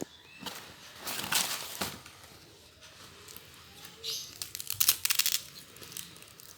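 Rustling and crinkling handling noises in two bursts, about a second in and again about four seconds in, the second a quick fluttering run of strokes.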